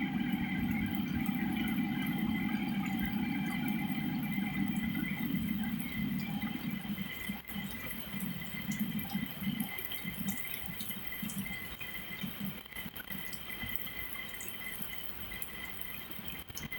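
Heavy rain falling and splashing, with drips and spatters. A strong low rush in the first half eases after about six seconds into lighter, scattered splashes, and a faint steady high tone runs underneath.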